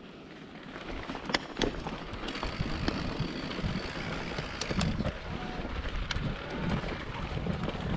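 Wind buffeting the microphone in a low rumble that grows stronger about two seconds in, with scattered sharp clicks and knocks.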